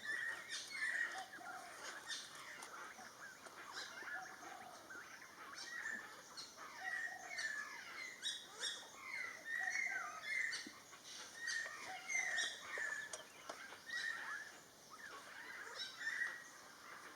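Wild birds chirping and calling without pause, many short notes from several birds overlapping.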